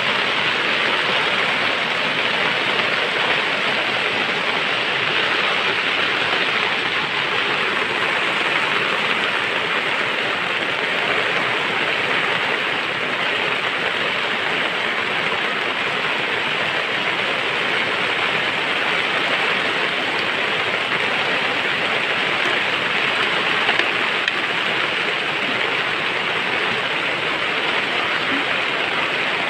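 Steady, even rain-like hiss, with no distinct strokes or changes.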